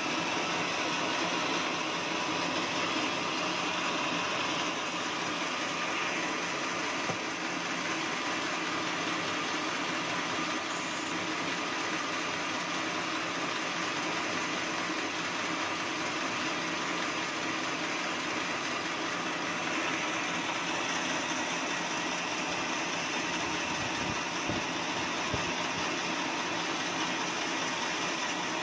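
Band sawmill running steadily, a continuous mechanical noise from the saw's drive and blade.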